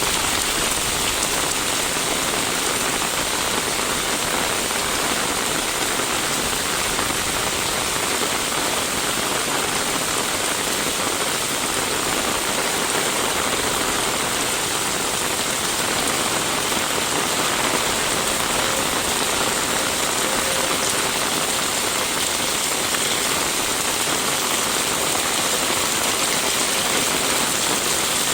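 Steady rain falling, an even hiss that neither builds nor fades.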